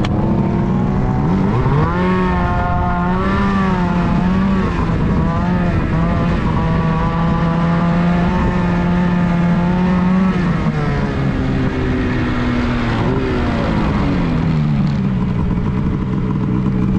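Snowmobile engine pulling away with its note rising, running at a steady pitch for several seconds, then dropping as the sled slows to a stop.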